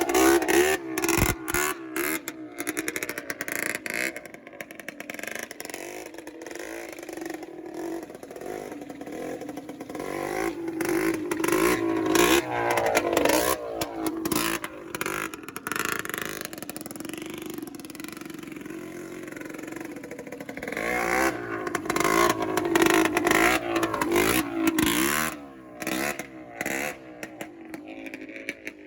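Kawasaki Z1000 inline-four motorcycle being ridden hard, the engine revving up and falling back again and again. Sharp crackling pops from the exhaust run through it, and it grows loudest twice as the bike comes close.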